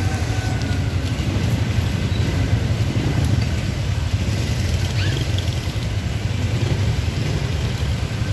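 Steady low rumble of a motorcycle engine running at low speed, heard from on the bike as it crawls through congested street traffic.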